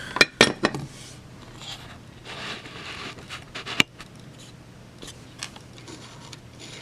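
Handling noises on a workbench: a quick run of sharp clicks and knocks in the first second, a soft scraping rustle, then a single sharp click near the middle, over a faint steady hum.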